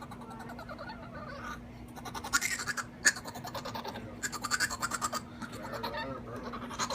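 Pekingese dog making rapid raspy, rattling noises in four bursts of about a second each, each burst a fast run of clicks. A faint steady hum lies underneath.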